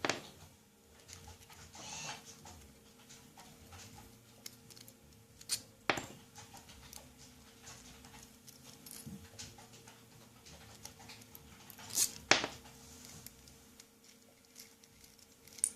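Small metal parts and tools of an amperometric flowcell being handled on a tabletop: a few sharp clicks and taps, coming in pairs about six seconds in and again about twelve seconds in, over a faint steady hum.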